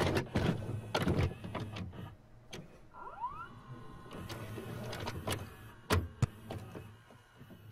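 VCR tape transport mechanism: a run of clicks and clunks over a low motor hum, with a short rising whine about three seconds in, as the deck goes from stop into play.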